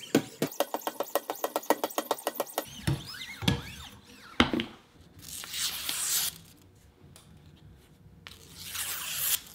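Wicked Edge sharpener's 1.5-micron paddles stroked quickly and lightly along a knife edge, about seven strokes a second, stopping after a few seconds; two knocks follow as the paddles are put down. Then the freshly sharpened blade slices through paper twice with a hiss, testing the edge.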